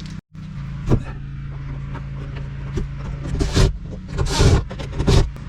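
Handling noises from working on the kayak's parts: a knock about a second in, then several short rustling, clattering bursts between three and five seconds, over a steady low hum.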